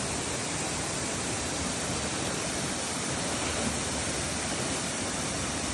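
Waterfall running, a steady, even rush of falling water with no breaks.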